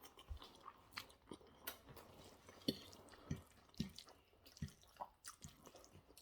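Close-up mouth sounds of someone eating spaghetti bolognese: soft chewing with short, irregular wet smacks, one or two a second, the loudest about two and a half seconds in.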